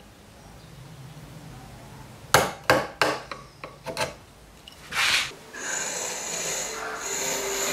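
Bench chisel chopping and levering waste out of a mortise in white oak: a quick run of sharp wooden knocks and clicks, then a short scraping rasp. A steady hiss comes in for the last two seconds.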